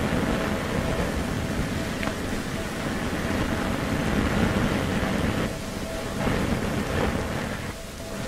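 Rough sea surf: waves breaking and surging against a breakwater, a continuous rushing noise that swells and ebbs, dipping briefly about two-thirds of the way through. A faint steady whine runs underneath.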